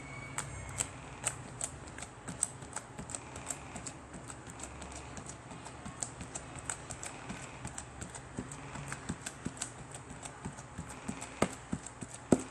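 Slime being squeezed and worked by hand, making quick, irregular clicks and pops of trapped air, about three or four a second, with a couple of louder pops near the end.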